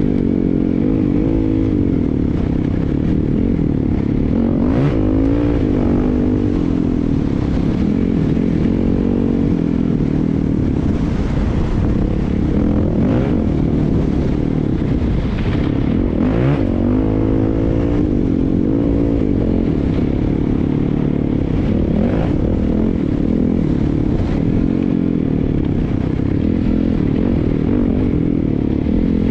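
Off-road vehicle engine running down a bumpy dirt track, its pitch rising and falling with the throttle over a continuous rattle and rumble from the ride. There are a few sharper knocks: around five seconds in, twice around fifteen to sixteen seconds, and once around twenty-two seconds.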